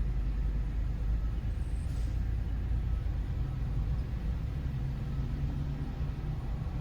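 Motor vehicle engine running, a steady low rumble; a steadier engine hum joins it about five seconds in.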